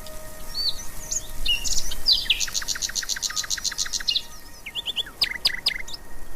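Bird chirps and whistled calls. About halfway through comes a fast trill of roughly ten notes a second, and a few sharp chirps follow near the end.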